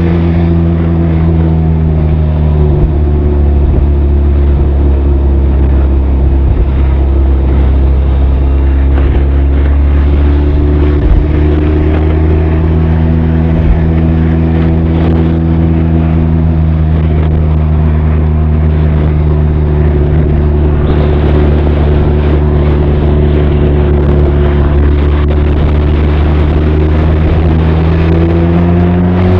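Benelli TRK 502's parallel-twin engine and exhaust running at a steady cruise, the engine note rising and falling only slightly, with wind noise under it.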